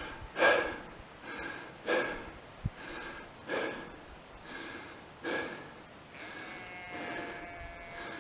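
A man's heavy breathing, a puff roughly every one and a half to two seconds, with a light bump about three seconds in and a faint steady tone near the end.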